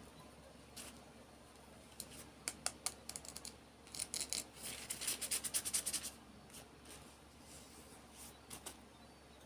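Small toy packaging being handled and opened: scattered light clicks and taps, a quick run of ticks about two to three seconds in, then a dense scratchy, crinkling rustle from about four to six seconds in.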